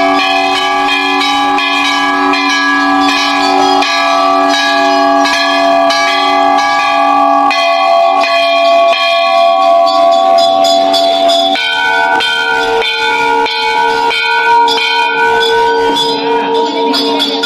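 Instrumental interlude of a devotional bhajan: held, ringing chords with notes struck on a steady beat, moving to a new chord about twelve seconds in.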